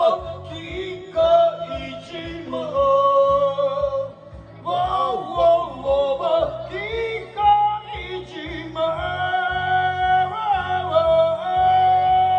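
A man singing karaoke through a handheld microphone over a backing track, holding long, drawn-out notes with bends and slides between them.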